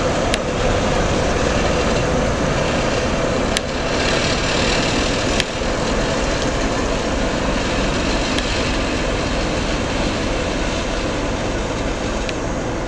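ChME3 diesel shunting locomotive with its six-cylinder diesel engine running steadily as it moves slowly with a couple of freight cars. A few short sharp clicks come through along the way.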